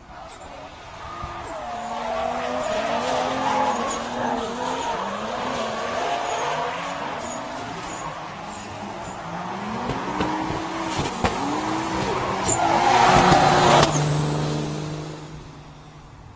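Two drift cars sliding in tandem, their engines revving up and down as the tyres squeal through the slide. The sound swells loudest about thirteen seconds in, then fades away.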